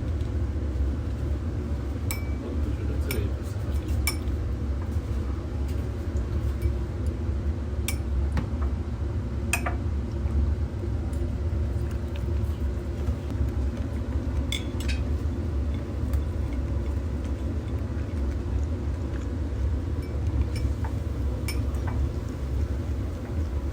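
Steady low rumble with a dozen or so light clinks and taps scattered through it.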